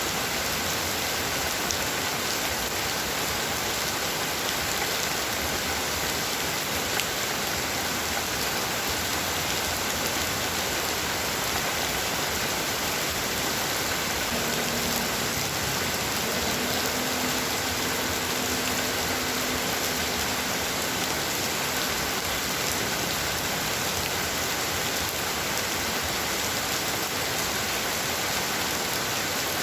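Heavy rain falling steadily, a dense, even hiss with no let-up. A faint low hum sits under it for several seconds around the middle.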